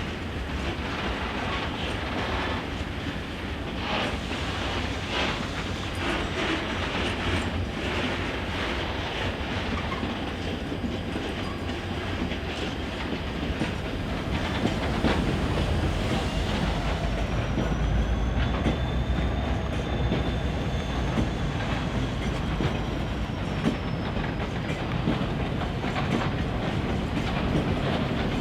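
A train passing on the line, its wheels clicking rhythmically over rail joints, with a deeper rumble building about halfway through. A faint high whine rises and then falls in the second half.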